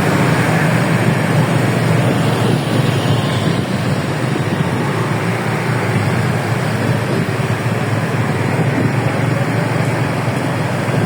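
Steady, even rumble of vehicle engines and road noise, with no horn melody sounding.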